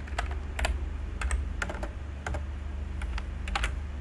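Computer keyboard typing: about ten scattered, irregular keystroke clicks, over a steady low hum.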